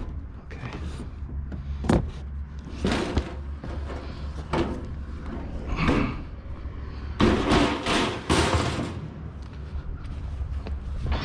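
Knocks, thumps and scrapes of scrap being handled and loaded, with a slam about 2 seconds in, over a steady low hum from a vehicle.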